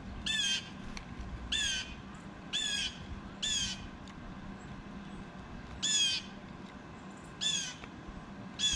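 Blue jay calling: a harsh, squawking jay call repeated seven times at uneven intervals, with a longer pause midway.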